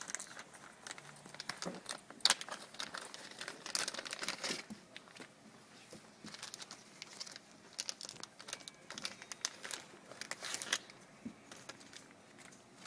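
Bag crinkling and rustling in irregular spurts as small parts are pulled out of it, with a sharp crackle about two seconds in.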